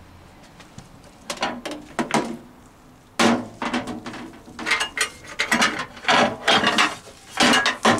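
Glass microwave turntable plate and its roller ring being handled: a quick run of knocks, clatters and scrapes that starts about a second in and gets louder and busier from about three seconds in.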